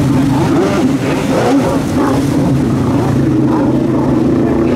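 Two-stroke 1200 cc Yamaha engine of a stand-up freestyle jet ski running at speed, its pitch rising and falling through the first two seconds as it turns, then holding steadier.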